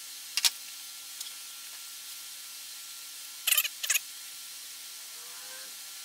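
Metal clinks of a wrench on the axle lock nut of a New Departure bicycle rear hub as the lock nut is loosened and taken off: a couple of sharp clicks about half a second in, then a quick cluster of clinks a little past the middle.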